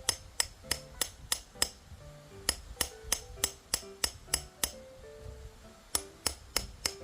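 Background music with a simple stepping melody, over sharp, evenly spaced taps or knocks about three a second in runs of several, with short pauses between runs.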